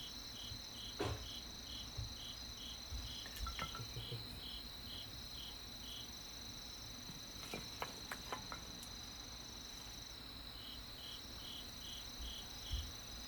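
Crickets singing: a steady high trill with an evenly pulsed chirp about two to three times a second that stops for a few seconds mid-way and then resumes. A few sharp pops from the burning campfire wood cut through, about a second in and again around eight seconds.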